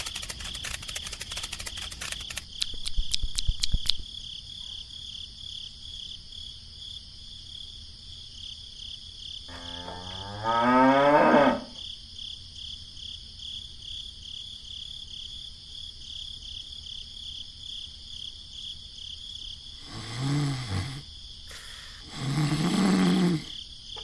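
Cattle mooing: one long call rising in pitch about halfway through, then two shorter calls near the end. Underneath is a steady high-pitched pulsing whine, with rapid clicking in the first few seconds.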